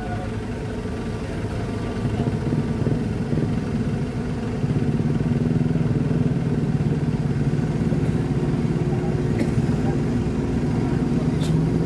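Diesel engine of a loaded Mitsubishi Fuso dump truck stuck deep in mud, running under load and getting louder about two seconds in and again near five seconds as it strains to pull free. Two faint short ticks near the end.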